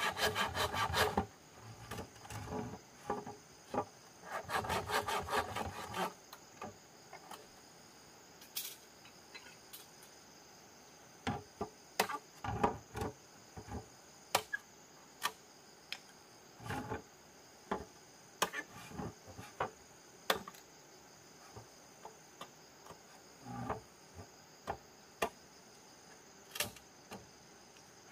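Hand saw cutting bamboo in quick back-and-forth strokes, two short bursts in the first six seconds, followed by scattered knocks and taps of bamboo being handled. A steady high insect chirring runs underneath.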